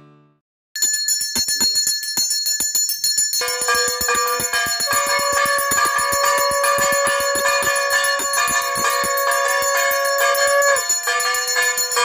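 Puja hand bell (ghanta) rung rapidly and continuously during the worship. A long steady pitched note joins about three seconds in and breaks briefly near the end.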